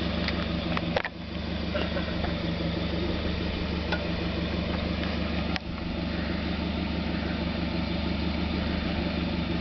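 Lifted 4x4 SUV's engine idling steadily while the truck sits stopped on the rocks, with two sharp clicks.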